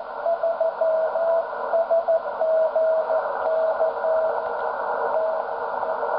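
A Morse code (CW) signal on the 160 m amateur band, heard through a Yaesu HF transceiver's speaker: a single steady tone keyed on and off in dots and dashes over a constant hiss of band noise.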